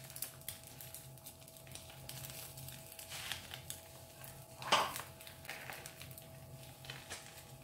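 Quiet sounds of a frying pan with egg batter cooking in it: a low steady hum under faint pan noise, with a brief sharp sound a little before five seconds in.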